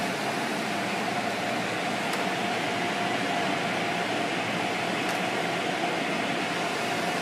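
Automatic car wash running, heard from inside the car: a steady rush of water spray and spinning brushes, with a steady hum from the machinery.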